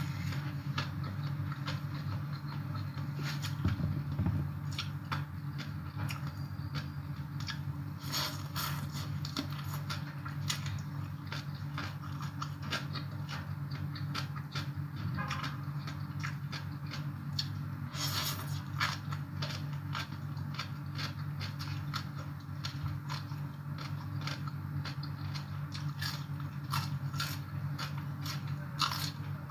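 Close-up chewing of crunchy shredded green papaya salad (som tam), a run of crisp crackling crunches and mouth clicks, over a steady low hum.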